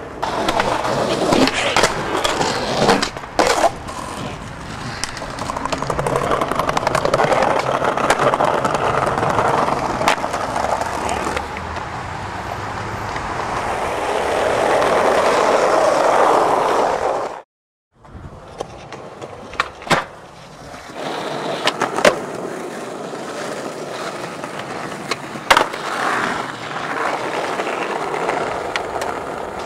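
Skateboard wheels rolling over concrete and asphalt, with sharp clacks of the board popping and landing several times. The sound cuts out briefly about halfway through.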